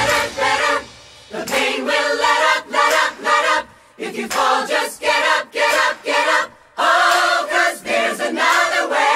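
Several voices singing together without accompaniment, in short phrases with brief breaks between them.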